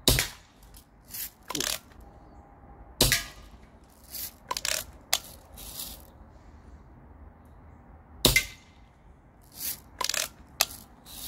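Daisy Red Ryder spring-powered lever-action BB gun shooting: three sharp shots spaced several seconds apart, the last the loudest. Between shots come lighter metallic clicks and clacks of the lever being worked to cock it.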